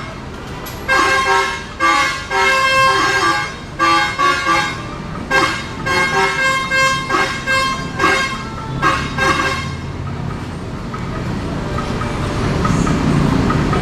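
Indonesian bus 'telolet' multi-tone musical horn playing a quick tune of short notes for about eight seconds, then a bus engine running with traffic noise that swells near the end.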